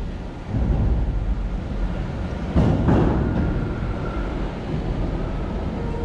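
Low rumble of traffic crossing the bridge overhead, swelling louder about two and a half seconds in.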